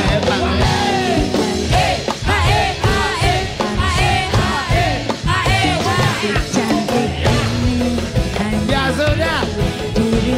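Live dangdut band music, with a steady beat from drums and bass under a melody line that bends up and down in pitch.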